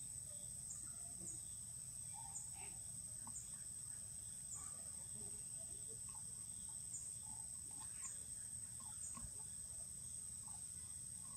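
Insects droning steadily in a high, even whine, with faint scattered ticks and chirps over a low background rumble.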